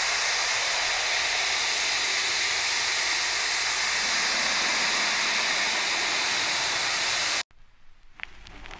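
Analog TV static: a steady hiss that cuts off suddenly about seven and a half seconds in. A few faint soft notes and light ticks follow near the end.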